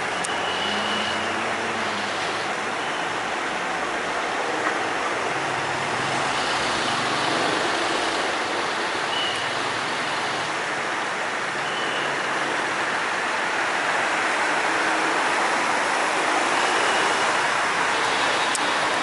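Steady outdoor city background noise: a continuous even wash of sound with no distinct events, broken only by a few faint, brief high tones, growing slightly louder near the end.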